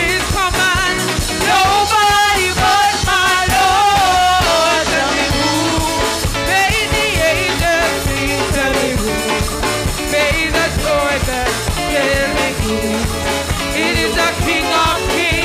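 Voices singing a church gospel chorus to a band, with a steady beat.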